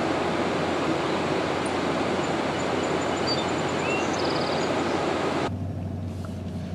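Steady roar of swollen floodwater pouring over a river dam, cutting off abruptly about five and a half seconds in, leaving a much quieter low steady hum.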